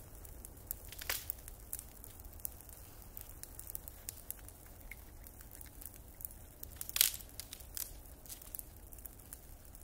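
Wood bonfire crackling, with scattered sharp pops; the loudest pop comes about seven seconds in, another about a second in.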